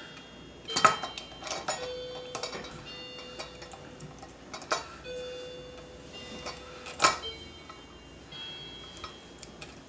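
Metal parts of a small steel pressurized popcorn popper clinking and clicking as they are handled and tightened together. There are several sharp clinks, and some leave a metallic ring that hangs on for a couple of seconds.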